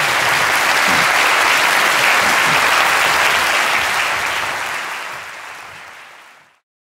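Large theatre audience applauding steadily, then the applause fades out over the last few seconds and stops.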